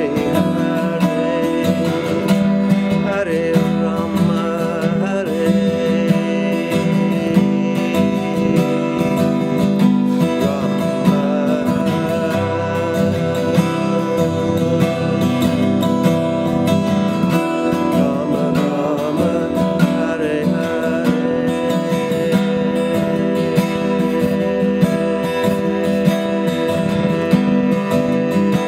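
Steel-string acoustic guitar strummed steadily, a continuous chord accompaniment without pauses.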